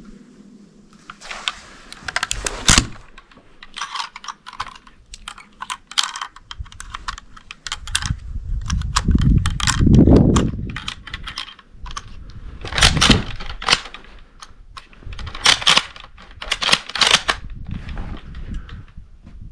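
Straight-pull rifle being handled and loaded: a run of sharp metallic clicks and clacks as 8mm Mauser cartridges go in and the action is worked, with a low rumble swelling about halfway through.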